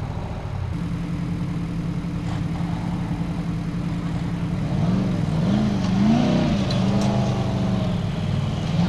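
Formula Offroad buggy's engine running at steady revs, then revving up and down several times from about five seconds in as it pulls away and climbs a sandy slope under load.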